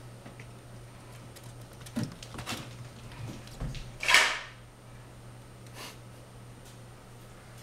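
Cats at play: a few light knocks and scuffles on the wooden floor and furniture, then one louder, brief scuffle of noise about four seconds in, under a steady low hum.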